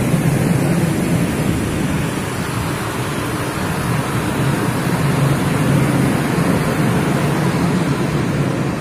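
Freight train of coal-loaded open wagons rolling past close by: a steady rumble of steel wheels on the rails as the tail of the train goes by.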